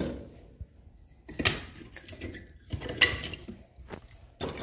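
Kindling sticks and bark being stacked on newspaper inside a wood stove: a few separate knocks and clatters of wood against wood.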